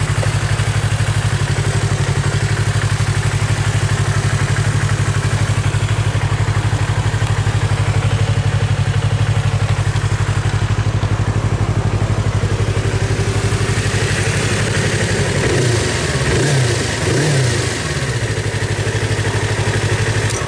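Yamaha YZF-R25's parallel-twin engine idling steadily through an Akrapovic aftermarket exhaust. Near the end it gets a few quick throttle blips that rise and fall in pitch.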